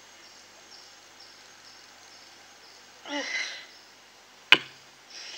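A woman crying at a handheld microphone: a sobbing breath about three seconds in, a sharp knock on the microphone a moment later, and a sniff near the end.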